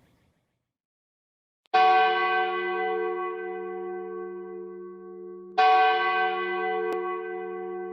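A large church bell struck twice, slowly and about four seconds apart, after nearly two seconds of silence; each stroke rings on and slowly fades.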